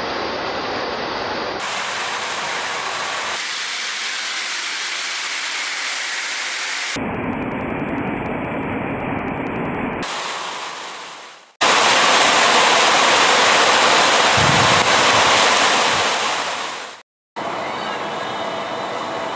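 Steady rain noise heard in several spliced recordings that change abruptly every few seconds, with a louder stretch in the middle and a brief cut to silence near the end.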